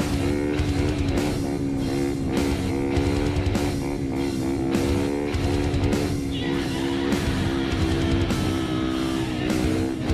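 Rock music with guitars over a steady beat.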